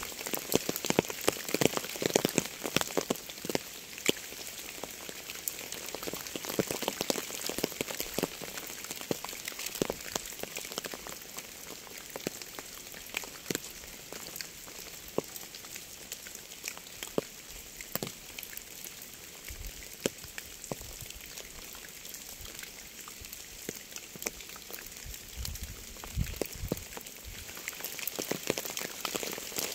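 Steady rain falling, with many separate drops striking close by as sharp little clicks over the hiss of the rainfall. It is heavier at the start, eases through the middle, and picks up again near the end.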